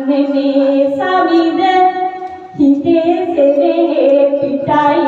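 A woman singing Sinhala verse (kavi) solo into a microphone, holding long drawn-out notes that step to a new pitch every second or two.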